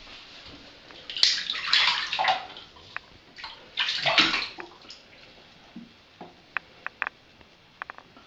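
A kitten splashing through shallow bathwater in a tub: two loud bursts of splashing, about a second in and about four seconds in, then a few short light drips and splashes near the end.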